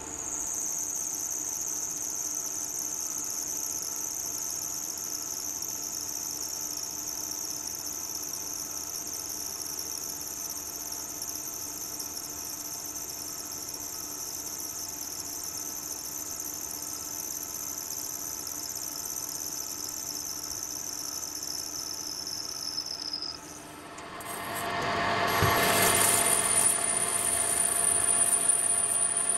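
Milling machine cutting an aluminium block with an end mill: a steady high-pitched whine that drifts slightly lower. About 24 seconds in it gives way to a louder, rougher cutting sound with a thin high tone, as a Colchester lathe faces the aluminium plate.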